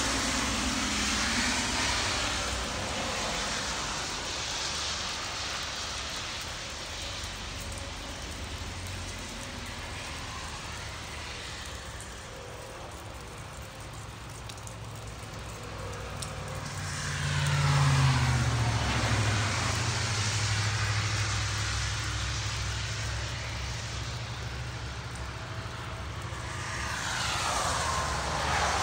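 Vehicles passing on a wet road over a steady hiss of rain. The loudest pass comes about two-thirds in, carrying a low engine hum, and a second one passes near the end.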